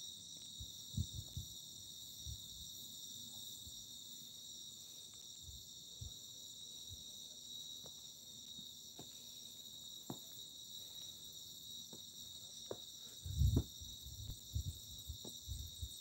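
A steady night chorus of crickets, a continuous high trilling. Scattered soft low thumps and clicks come through it, the loudest about thirteen seconds in.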